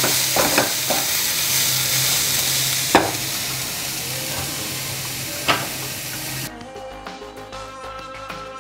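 Grated cauliflower sizzling in hot oil in a nonstick pan, with a few sharp knocks of the spatula against the pan as it is stirred. About six and a half seconds in the sizzling cuts off abruptly and background music takes over.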